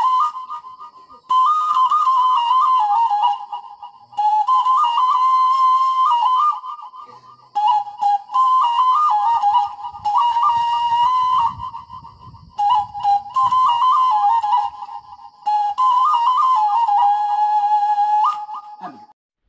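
A tulila, the small Batak Toba bamboo flute, played solo: a high melody of a few notes with quick ornamented turns, in phrases of two to three seconds broken by short pauses for breath.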